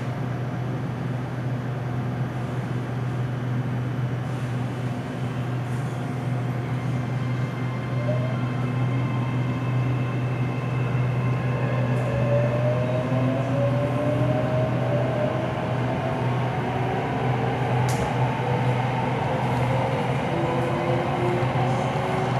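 Red Line electric multiple-unit train pulling away: a steady low hum, with the traction motors' whine rising gradually in pitch from about eight seconds in as the train gathers speed.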